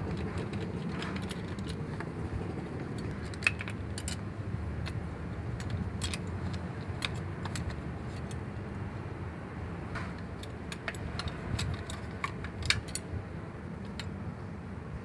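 Many small, sharp metallic clicks and clinks, scattered irregularly, as rubber fuel return hoses are worked off the nipples of a diesel engine's injector nozzles and the fittings knock together. A steady low hum runs underneath.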